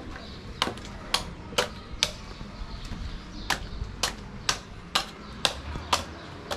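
Machete chopping a green coconut's husk: a series of sharp chops about two a second, pausing for about a second and a half in the middle, as the coconut is trimmed open for drinking.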